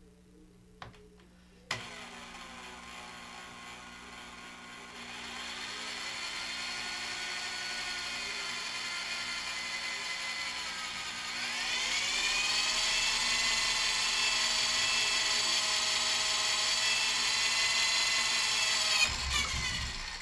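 Ryobi electric drill boring a 1/8 inch pilot hole into a bicycle frame tube. It starts with a click about two seconds in and runs slowly while the bit bites. It speeds up around five seconds in and rises to a faster, higher whine about twelve seconds in to punch through, then stops shortly before the end.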